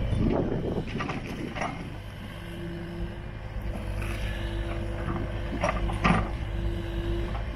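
Kubota U36-4 mini excavator digging: its diesel engine runs under load, with a pitched hum that comes and goes as the hydraulics work. The bucket scrapes and knocks through soil and stones, with the sharpest knock about six seconds in.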